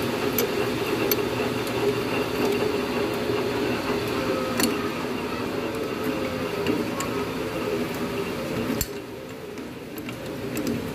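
Steady mechanical hum with a few light metal clicks and taps from the boring tool and wrench being handled on the crankcase. A sharper click comes about nine seconds in, after which the hum drops quieter.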